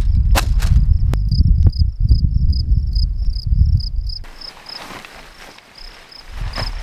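Insect chirping in short, high, evenly spaced pulses, about four a second, over wind buffeting the microphone that cuts out about four seconds in. A few sharp clicks come in the first two seconds, and tent fabric rustles near the end.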